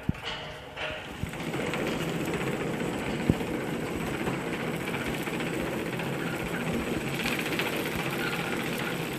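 Spoon flow-wrapping packing machine running: a steady, dense mechanical clatter that grows louder about a second in, after a few light knocks, with one sharp click about three seconds in.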